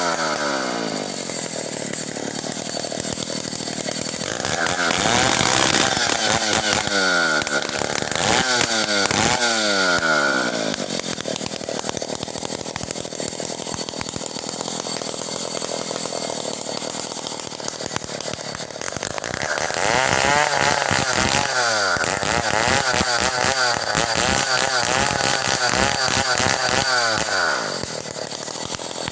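Stihl 070 two-stroke chainsaw running loud, its engine speed rising and falling several times, with a steadier stretch through the middle and a quick run of revs and drops near the end.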